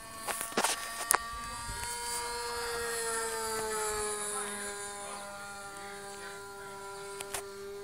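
Radio-controlled model airplane's motor running in flight, a steady high-pitched drone that sinks slowly in pitch and then holds. A few sharp clicks about a second in and again near the end.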